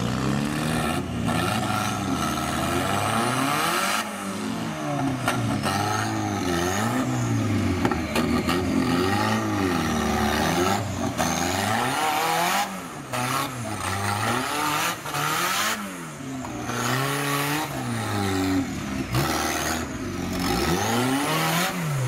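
Off-road competition 4x4's engine revving up and falling back again and again as it crawls up a steep rock gully, the pitch rising and dropping every second or two.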